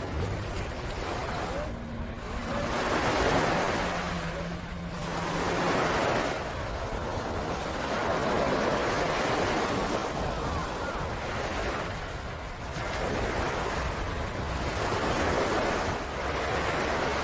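Ocean surf: waves breaking and washing up the beach, the rush swelling and fading every few seconds.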